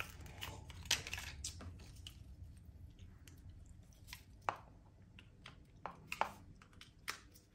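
Faint crinkling and rustling of packaging as a phone charger's cable is unwrapped and handled, with scattered light clicks.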